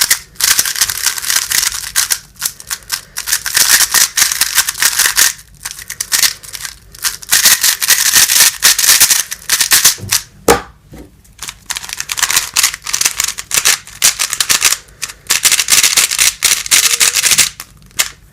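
MoFang Jiaoshi MF3RS magnetic 3x3 speedcubes (version 2 and version 3) being turned rapidly. The plastic layers clack and rattle in fast bursts, with brief pauses between runs of turns.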